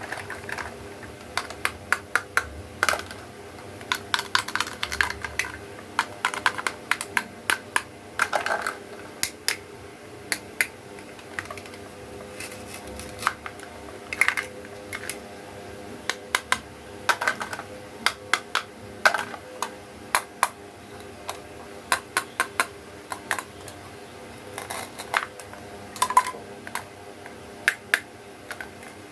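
Plastic toy pieces clicking and tapping: quick, irregular runs of small hard clicks, over a faint steady hum.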